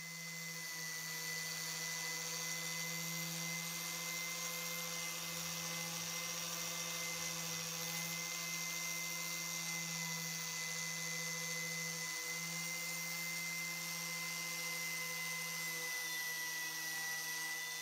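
Electric power tool running at a steady speed, a constant motor whine with a high hiss over it.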